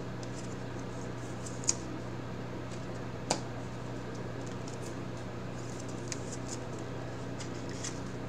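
Trading cards being handled by hand: faint ticks and slides of card stock, with two sharper clicks about two and three and a half seconds in, over a steady low hum.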